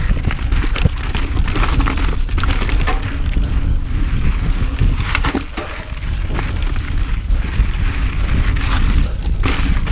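Mountain bike rolling fast over a dry, rocky dirt trail: heavy wind buffeting on the camera microphone, with tyre noise on the dirt and repeated sharp clatters as the bike jolts over rocks.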